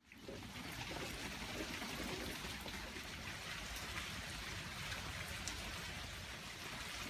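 Steady rain falling: an even hiss with scattered small drop ticks, fading in at the start.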